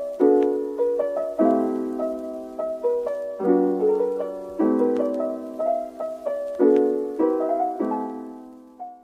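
Slow solo piano music: sustained chords struck about once a second and left to ring and decay, fading out at the end.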